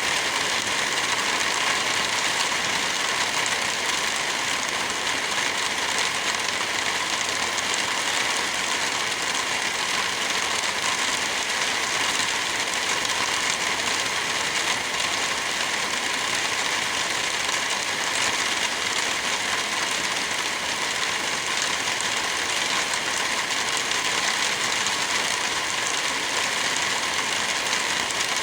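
Heavy rain falling steadily: an even, unbroken hiss with no let-up.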